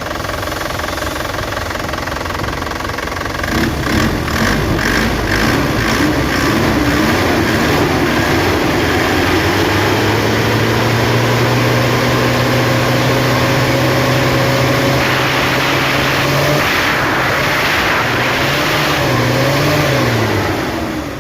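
Diesel engine being revved, its pitch rising and falling several times, then held at high speed for several seconds while slowly climbing, then blipped up and down again near the end. It runs smoothly after a misfire caused by water in the diesel fuel filter and a clogged strainer was repaired.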